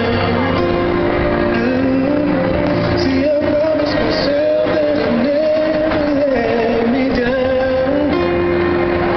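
A song playing loud: a sung melody with long, wavering held notes over backing music.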